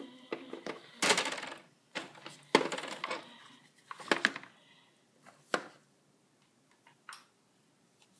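Plastic dolls being handled and set down on a plastic toy playset: a handful of sharp knocks and clatters during the first five and a half seconds, one more small tap later, then little sound.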